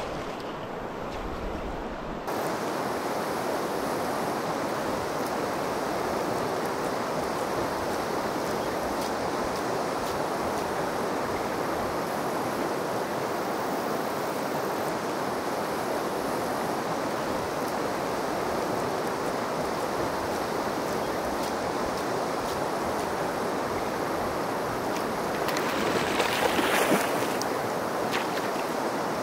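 Steady rush of river water flowing over a shallow cobble riffle. Near the end, a couple of seconds of louder splashing as a hooked bull trout thrashes at the surface.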